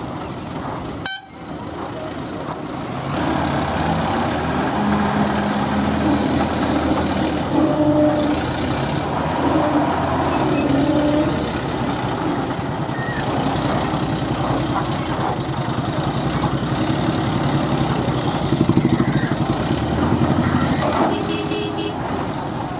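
Heavy diesel engines running, louder from about three seconds in, with a vehicle horn sounding and voices in the background.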